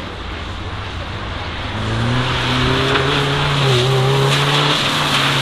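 Nissan Micra hatchback driven hard through a slalom on wet tarmac: its engine note picks up and climbs under acceleration about two seconds in and drops back near the end, over a steady hiss of the tyres throwing water spray.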